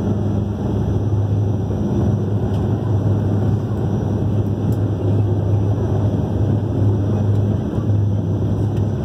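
Airliner cabin noise during landing: a steady low drone of the engines and rushing air, with a deep hum, heard from inside the cabin.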